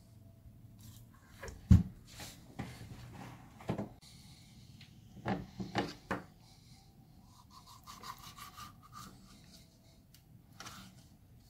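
Knife and raw sheep's head handled on a wooden cutting board: scattered knocks, clicks and scraping, with one sharp knock about two seconds in and a cluster of knocks around five to six seconds.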